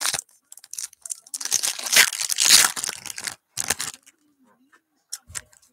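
A Chrome Update trading-card pack's wrapper being torn open and crinkled by hand. It is loudest about two to three seconds in, and a couple of light taps follow near the end.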